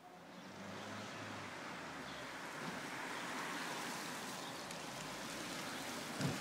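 Car driving along a road: steady tyre and road noise with a low engine hum. A single short thump comes near the end.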